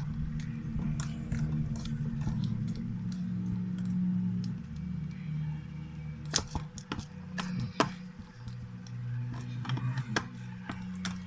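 Slime being mixed and squished by hand: scattered sharp clicks and pops, loudest about six and eight seconds in, over a steady low hum.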